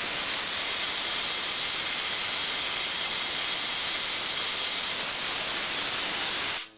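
Small spark-gap Tesla coil driven by a ZVS flyback supply running, its spark gap firing and a streamer arcing from the top load: a loud, steady hiss that cuts off suddenly near the end.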